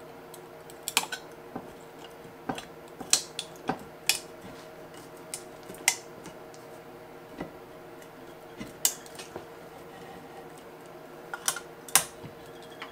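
Steel slip-joint pliers clicking and clinking against the metal housing of a small water pressure gauge held in a bench vise as they grip and twist it. There are about fifteen sharp metallic clicks at irregular intervals, some in quick pairs, over a faint steady hum.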